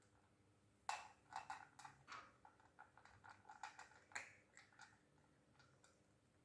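Faint, quick, irregular crunches of dry food being chewed, in a run that starts about a second in and dies away near the five-second mark.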